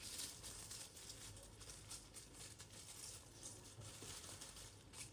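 Rain pattering, a faint, dense crackle of many small drop ticks.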